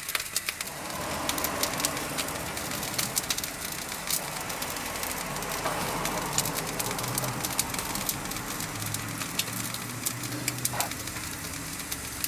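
Pork roast searing on the hot grate of an electric tabletop grill: steady sizzling with a dense crackle of fat popping and spitting.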